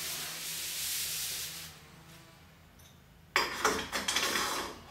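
Foam padding sleeve being pushed along a metal storage-rack peg: a soft rubbing hiss for the first second and a half, then a louder run of scraping rubs and knocks from about three and a half seconds in.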